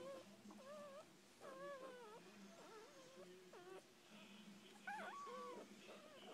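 Newborn puppies, six days old, making faint high-pitched squeaks and whimpers while nursing: a string of about seven short, wavering squeaks.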